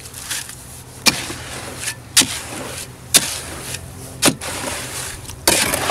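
A shovel mixing wet concrete in a plastic wheelbarrow: the blade scrapes through the mix and knocks sharply against the tub about once a second, four times. A steady low hum runs underneath.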